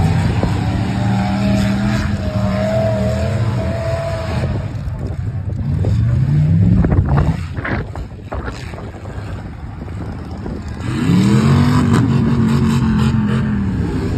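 A large vehicle engine running and revving: a steady note at first, a quick rev about six seconds in, and another rev near the end that climbs and holds before easing off.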